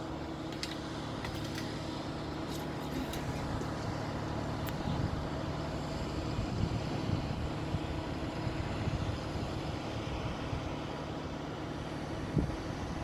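A steady low engine drone that holds one pitch throughout, with a few faint clicks in the first few seconds.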